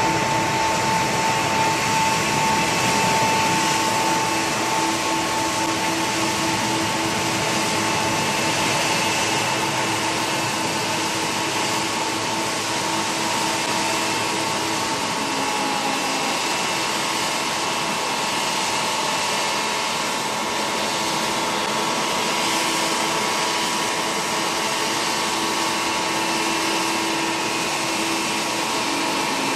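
Boeing 777-200ER's General Electric GE90 jet engines on the landing roll: a steady rushing noise with a whine in it. About halfway through, the whine steps down in pitch as the engines wind down.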